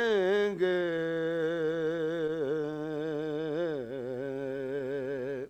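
Man reciting a naat unaccompanied, singing the word 'karenge' and drawing it out into one long held note with a quick vibrato. The note dips a little lower partway through and breaks off sharply near the end.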